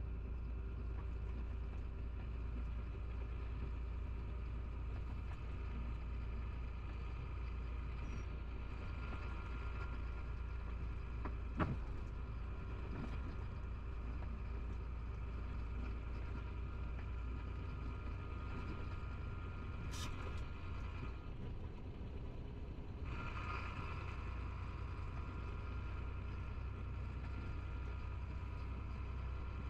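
Steady engine and road drone heard inside a Chenglong truck's cab while it cruises on a highway, with a steady higher whine over it. A sharp click sounds a little before the middle, and a second one about two-thirds through.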